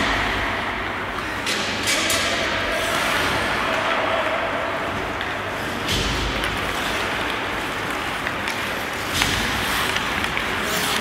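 Ice hockey play echoing in an indoor rink: a steady noisy wash of skates and hall ambience, with a few sharp knocks of sticks, puck and boards, the heaviest thud about six seconds in.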